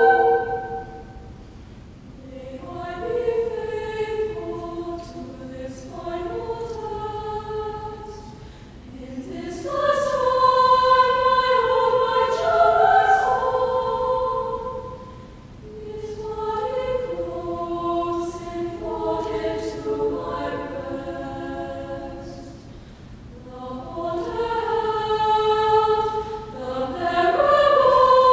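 Girls' choir singing slow phrases of long held chords, swelling louder about ten seconds in and again near the end, with softer passages between.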